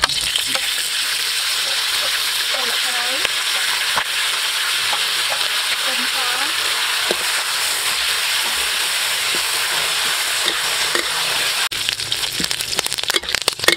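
Hot oil in a steel wok sizzling loudly as lime leaves and lemongrass fry in it. Near the end the steady sizzle turns to sharp crackling and scraping as a metal spatula stirs them.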